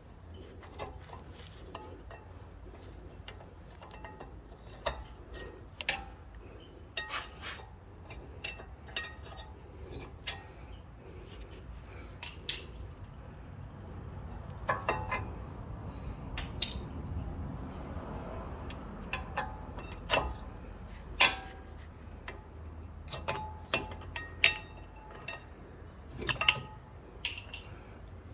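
Scattered metallic clinks and taps of tools and brake parts being handled during rear brake pad work, some knocks ringing briefly, at irregular intervals.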